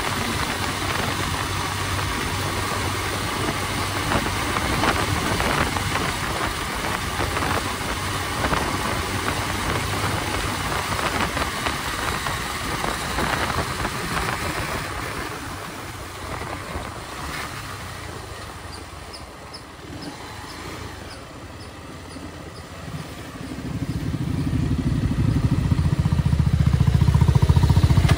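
Motorcycle engine with wind rush while riding, fading as the bike eases off and slows past the middle. Near the end a louder, steady low engine drone swells up from a motorcycle idling close by at a stop.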